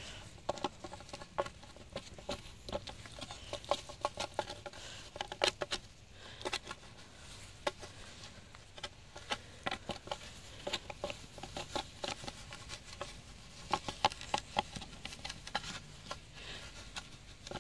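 A Pomeranian gander's bill pecking, gripping and nibbling at the end of a wooden stick: quick, irregular clusters of sharp clicks and taps.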